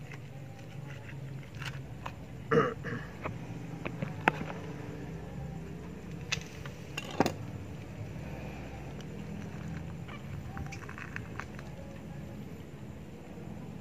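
Scattered short clicks and knocks from hands and a knife working a slaughtered rabbit's carcass and entrails, over a steady low hum.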